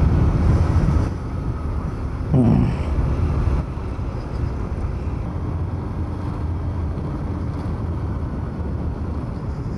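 Motorcycle on the move: engine running under steady wind and road rumble on the rider's microphone. A brief falling sound comes about two and a half seconds in.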